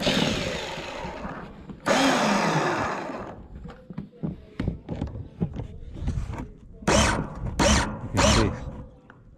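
Small 21-volt DC motor and gearbox of a mini cordless chainsaw, wired straight to its battery, whirring in two runs of about a second and a half each, the second winding down in pitch. Near the end come three short whirring bursts while the output shaft is gripped with pliers: the big gear slips on the shaft instead of turning it, the fault that stops the chain.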